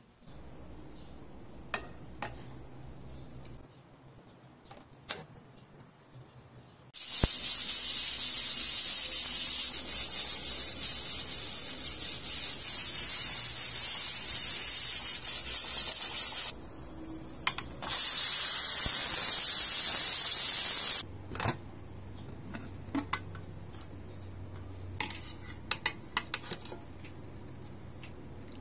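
Aluminium pressure cooker venting steam with a loud, even hiss for about nine seconds, breaking off briefly, then hissing again for about three seconds: it has come up to pressure. Near the end, a few light clinks of a metal skimmer against the pot.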